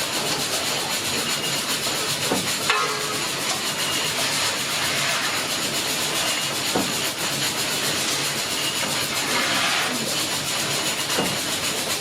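Fowler ploughing engine letting off steam in a steady hiss, with a few short metallic knocks, the sharpest one near three seconds in.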